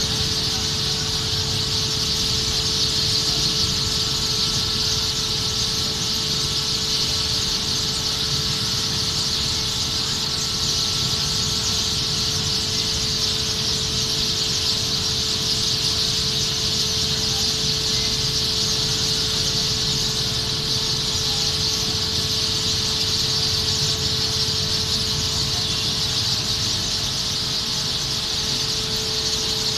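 Dense, unbroken chatter of a huge flock of birds massed together, one steady high din with no single call standing out. A low steady rumble and a faint steady hum run underneath.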